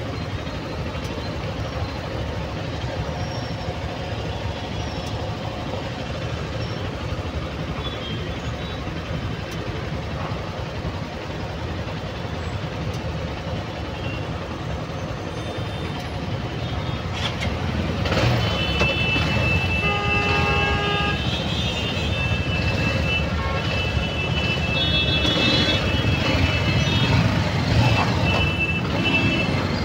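Road traffic in a jam: engines idling in a steady low rumble, then, from a little past the middle, louder engine noise as vehicles move off, with vehicle horns honking repeatedly.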